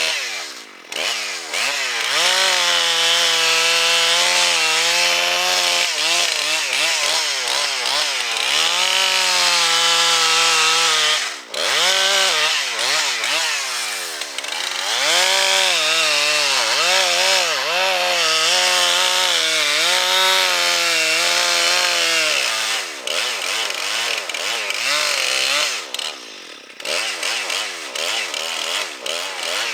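Two-stroke chainsaw running at full throttle while cutting wood, its pitch dipping and recovering as the chain loads up in the cut. The revs fall off briefly about a second in, near the middle, and several times near the end.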